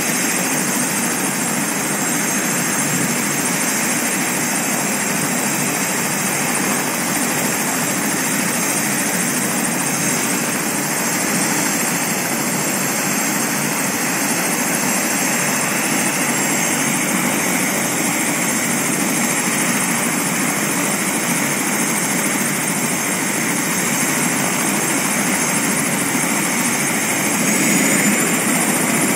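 Eurocopter AS350 helicopter running on the ground, its turbine engine whining steadily with the main rotor turning. Near the end the whine rises in pitch and grows a little louder as the engine spools up toward lift-off.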